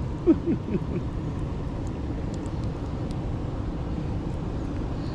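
Steady low outdoor rumble with no clear source. A short falling vocal sound comes in the first second.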